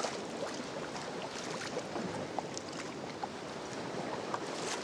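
Sea water sloshing and splashing around a sea kayak in swell, a steady wash of water with small scattered splashes and drips.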